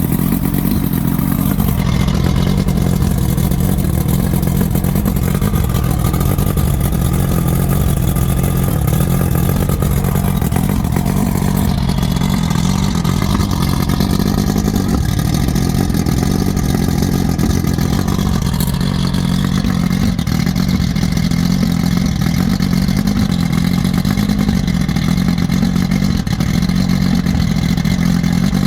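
Combustion engine running steadily. The uploader is asking whether its fault is a sneeze back through the intake or a misfire.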